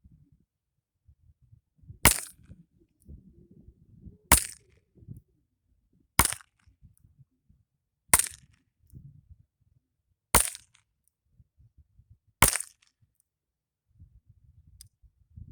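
Heritage .22 LR revolver fired six times, one sharp crack about every two seconds.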